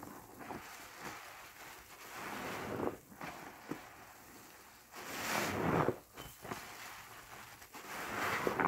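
Large foam sponge full of thick soap suds squeezed by hand, with wet squelching and crackling foam. The sound swells three times, about three seconds apart, each squeeze building and then cutting off as the grip is released.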